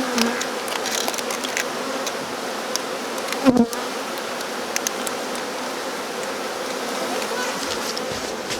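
A swarm of honeybees buzzing in a dense, steady hum, with one brief louder sound about three and a half seconds in.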